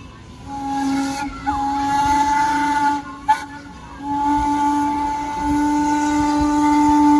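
Steam locomotive whistle blowing two blasts: one of about two and a half seconds, a break of about a second, then a longer blast still sounding at the end, over a hiss of steam. A sharp click falls in the break between the blasts.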